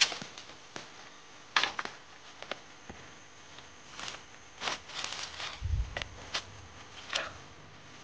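Scattered light clicks, knocks and rustles of things being handled, with one dull low thump about six seconds in.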